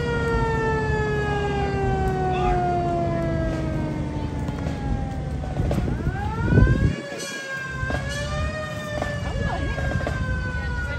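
Fire truck siren wailing: it winds up, falls slowly in pitch for about five seconds, then winds up again about six seconds in and holds, over a steady low rumble.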